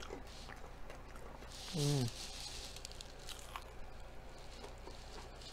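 Crunchy bites and chewing of a fried onion ring, heard as scattered small crackles. About two seconds in comes a brief hum that falls in pitch, the loudest sound.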